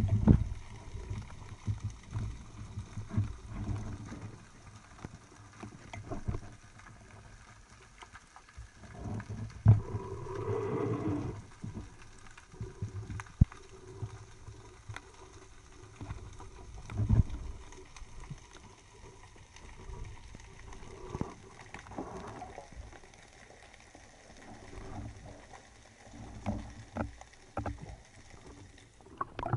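Underwater sound picked up through a camera housing on a speargun: irregular low thuds, knocks and sharp clicks as the gun and diver move, with a longer swirling noise about ten seconds in.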